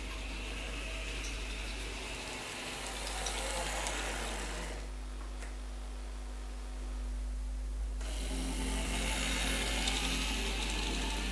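Small electric motor of a Mehanotehnika HO T360 model tram whirring as it runs, with its wheels rattling and clicking on the track. For a few seconds in the middle the rattle drops away, leaving a lower steady hum, before it comes back.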